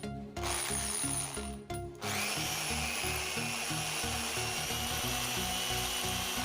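Modern electric drill's motor running, after its bearings have been replaced: a short rough burst about half a second in, then from about two seconds it spins up and holds a steady high whine. Background music plays throughout.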